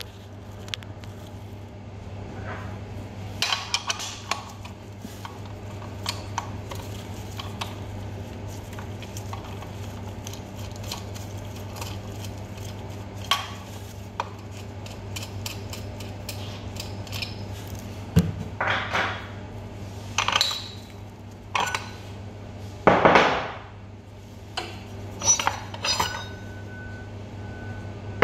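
Metal clinks and clanks as a centrifuge rotor is loosened and handled with a rotor wrench, coming in bursts that grow more frequent in the second half, over a steady low hum. A high, broken electronic tone sounds near the end.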